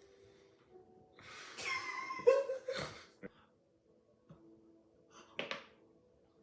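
Aioli squeezed out into a shot in sputtering plops: a spluttering squirt of about two seconds, then a short tick and one more brief squirt near the end.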